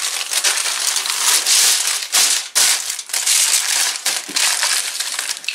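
Aluminium foil crinkling and crumpling as it is folded over and pressed down by hand, nearly continuous with a few brief pauses.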